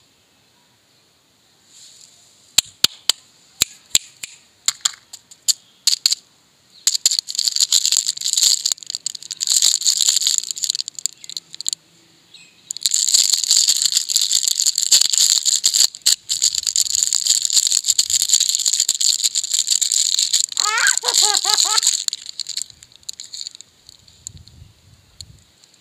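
A plastic biscuit wrapper being handled and torn open: a few sharp crackles first, then long stretches of loud crinkling, with a brief squeak of the plastic late on.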